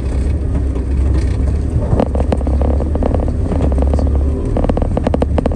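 Car driving: a steady low rumble of engine and road. From about two seconds in there is a fast, dense rattling of clicks, with a short lull near the end.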